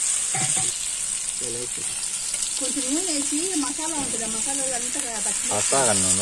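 Spice-marinated chicken pieces sizzling in oil on a flat griddle (penam) over a wood fire, a steady frying hiss. Tongs move the pieces, and a person's voice breaks in a few times, most strongly near the end.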